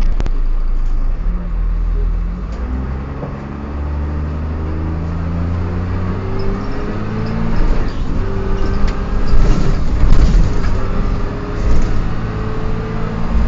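Dennis Dart single-deck bus pulling away and accelerating, its engine and transmission note rising over and over in steps, with an odd gear whine climbing with it. A sharp click right at the start.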